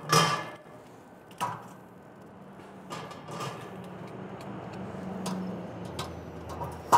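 Metal grill grate clanking as it is lifted off a kamado-style charcoal kettle grill and set aside, with a few sharp clanks and then a rougher metal rattling and scraping as a lifting tool hooks into the SloRoller smoke insert. Another sharp clank comes near the end.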